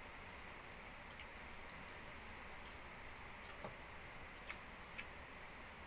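Small dog chewing a hand-fed piece of roast chicken: a few soft clicks, three of them in the second half, over a faint steady hiss.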